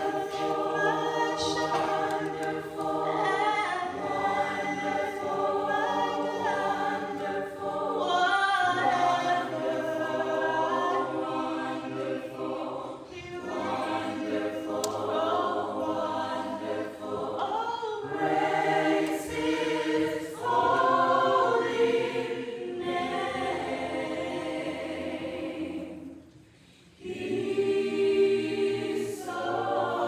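Gospel choir singing in harmony, with a solo lead singer on a microphone carrying the song above them. The singing breaks off briefly about four seconds before the end, then comes back in.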